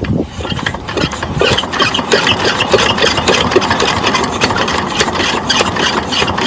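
Single-cylinder 12 HP diesel water-pump engine running with a rapid, even knocking beat, just after being started.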